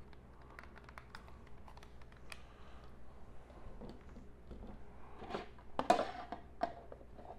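Scattered small clicks and taps of a hard plastic toy dagger being handled, with a cluster of louder clicks about five to six seconds in.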